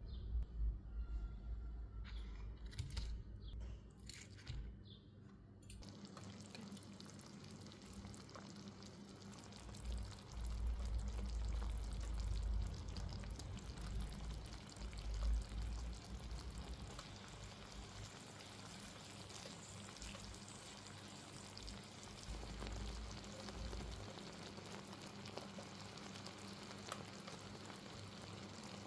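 Chicken frying with a steady sizzle, after several seconds of clicks and knocks from handling the pan.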